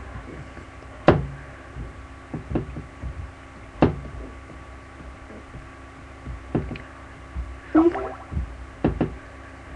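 Fingertip taps and handling knocks on an iPad 2, about ten sharp, irregular taps while its home screens are swiped through, over a faint steady hum.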